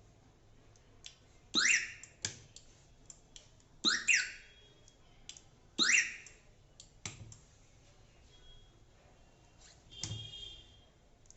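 Siren of a Mahindra Bolero central-lock security unit giving three short rising chirps about two seconds apart, with sharp clicks between them and a short beep near the end. These are the responses as lock and unlock are pressed together to toggle the siren between mute and unmute.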